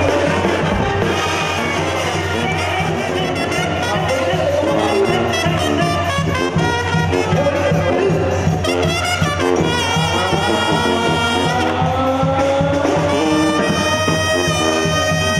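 Live banda sinaloense brass band playing: clarinets and brass over a steady bass beat and tambora drum. In the second half a single trumpet takes the lead with long held notes.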